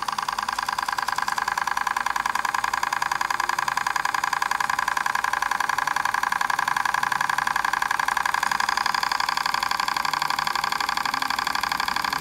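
Small model hot air engine running steadily, its mechanism giving a rapid, even ticking.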